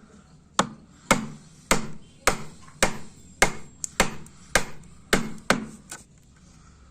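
A tool striking wood in a steady series of about ten sharp knocks, nearly two a second, then stopping.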